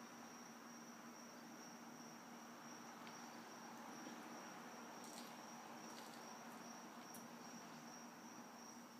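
Near silence: room tone with a faint steady high-pitched whine and a low hum, and a few faint ticks.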